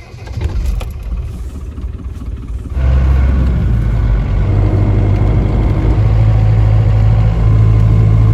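Land Rover Defender's turbocharged engine heard from inside the cab. It is quieter for the first few seconds, then about three seconds in it becomes a loud, steady drone as the Defender is driven along the road, its pitch shifting a little a few times. The owner says this engine is low on compression.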